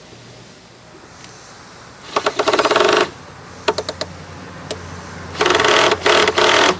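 Power drill running in two short bursts as the bit bores through, with a few sharp clicks between the bursts.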